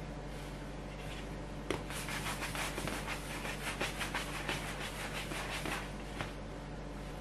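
Hands rounding balls of bread dough on a wooden table: a light knock about a second and a half in, then about four seconds of quick rubbing, scuffing strokes of palm and dough against the wood.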